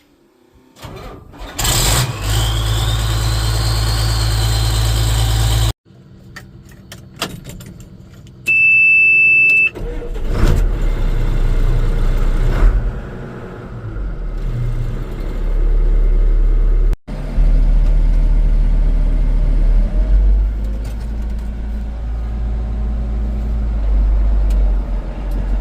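Large farm diesel engines starting and running in a series of cut-together clips, one with a whine that rises and levels off as it spools up. A single electronic warning beep sounds about a third of the way through.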